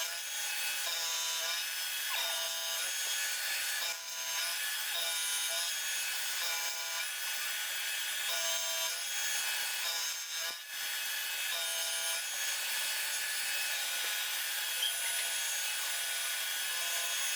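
Milling cutter on a jig boring machine cutting down the tops of two clamped metal blanks for camshaft caps, a steady cutting noise with high ringing tones that swell about every second and a half as the cutter turns through the work.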